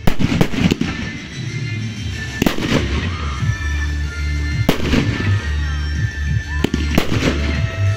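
Aerial firework shells bursting with sharp bangs, about ten of them, mostly in quick groups of two or three, over music playing throughout.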